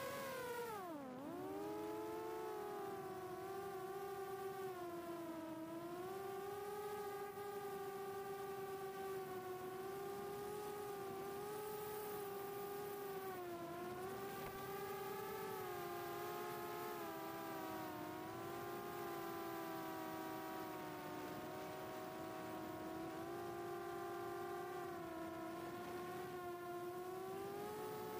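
The four HGLRC 1303.5 4500kv brushless motors and propellers of a 4-inch FPV quadcopter whining in flight, picked up by the onboard camera. The pitch dips sharply about a second in, then settles into a steady cruise whine that rises and falls slightly with the throttle.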